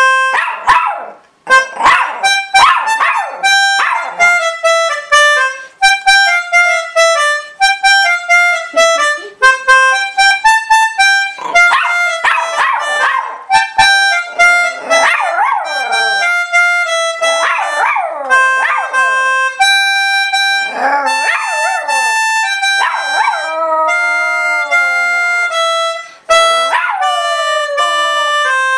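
A poodle howling along to an organ playing a slow melody: the organ's held notes step from pitch to pitch while the dog's howls glide up and down and waver over them.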